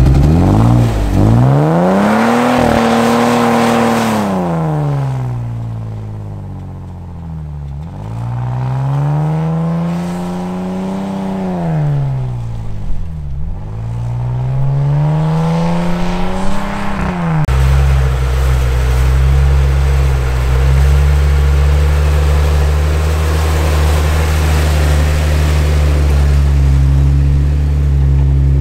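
Jeep Wrangler engine revving up and falling back three times in smooth rising and falling sweeps, then switching abruptly about two-thirds of the way in to a steady low idle close by.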